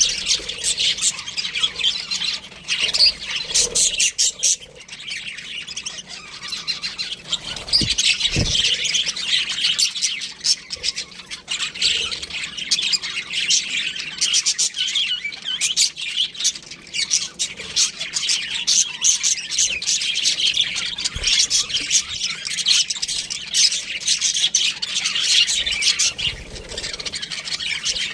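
Budgerigars chirping and chattering without a break, a dense stream of quick high chirps and squawks.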